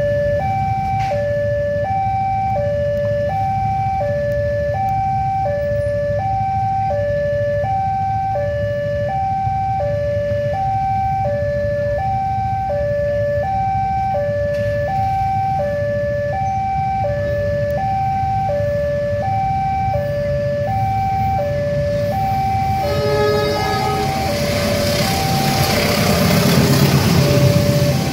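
Level-crossing warning siren sounding a steady two-tone hi-lo alarm, about two tones a second, while the barriers are down for an approaching train. Near the end a short horn blast sounds, and the rumble of the passenger train rises as it runs through the crossing.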